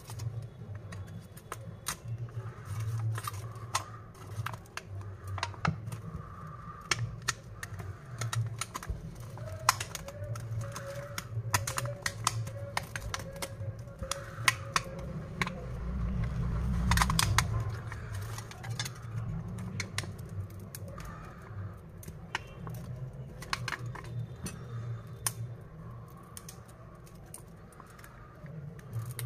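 Irregular light clicks and scraping of a thin prying tool working along the edge of a OnePlus Nord's cracked back glass, loosening the glass from the phone's frame, over a low steady hum.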